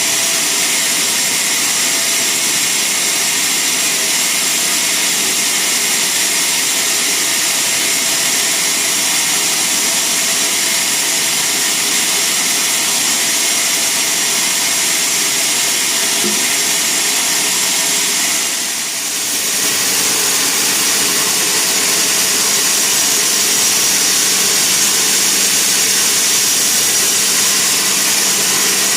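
Sawmill saw running and cutting wood: a loud, steady noise with a high whine, easing off briefly about two-thirds of the way through.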